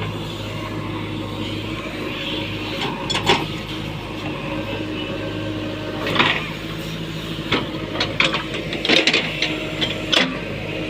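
JCB backhoe loader's diesel engine running steadily, with several sharp clanks and knocks over the second half.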